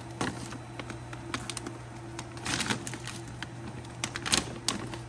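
Bag of pool stabilizer crinkling and crackling as it is handled and emptied into the pool skimmer: irregular clicks and crackles, in denser clusters about two and a half and four and a half seconds in.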